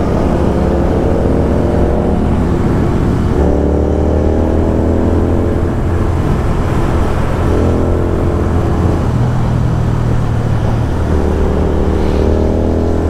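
Royal Enfield Continental GT 650 parallel-twin engine running under way, its note rising in pitch in several stretches as it accelerates.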